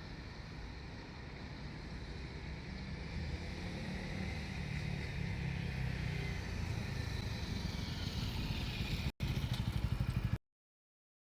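Diesel railcar rumbling past, its low engine and running noise growing steadily louder. After a brief break near the end comes about a second of rapid clattering, then the sound cuts off suddenly.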